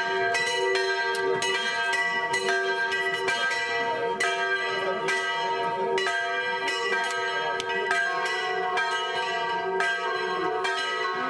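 Church bells pealing: quick, repeated strokes, about three a second, each leaving its ringing tone to overlap the next.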